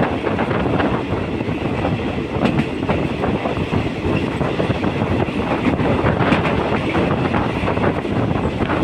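Passenger train running along the track, heard from a carriage window: a steady rumble of wheels on rail with many short clicks and clatters.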